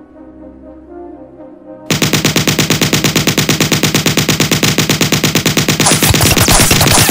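Soft brass music, then about two seconds in a long burst of automatic gunfire, a rapid even string of shots at roughly ten a second that drowns out everything else.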